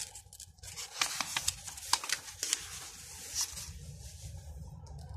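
A paper storybook page being turned by hand: a run of crisp rustles and crackles over a couple of seconds.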